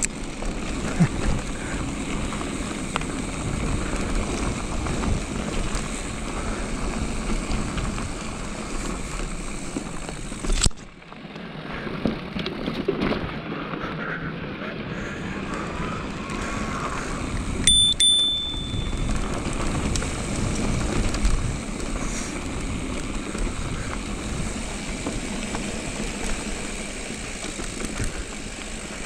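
Electric mountain bike descending a dirt singletrack: tyres rumbling over the dirt and the bike rattling. The noise drops away for about a second around eleven seconds in. A single short ring, like a bell, comes about eighteen seconds in.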